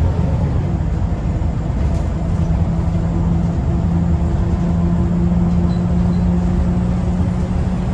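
Scania L94UB bus's rear engine and ZF automatic gearbox running under way, heard from inside the saloon: a steady low rumble with road noise, and a steady whine that comes in about two seconds in.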